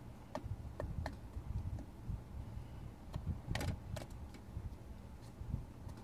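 Caframo Dragonfly fan running with a low hum, with scattered sharp clicks and taps as a cat paws at the spinning blades and wire guard; the loudest tap comes about three and a half seconds in.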